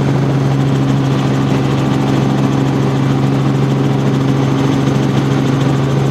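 Steady drone of a helicopter's engine and rotor heard from inside the cabin, a constant low hum that does not change.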